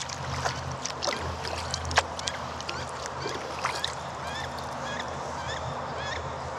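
Birds calling over and over, short hooked calls about twice a second, with scattered clicks and splashes from kayak paddling.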